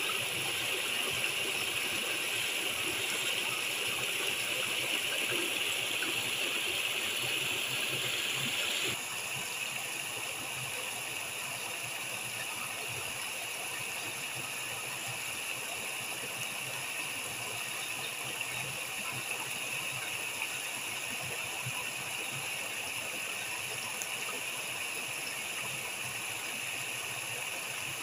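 Small waterfall pouring over rock and splashing into a shallow pool: a steady rush of falling water. About nine seconds in it suddenly gets a little quieter, then carries on steadily.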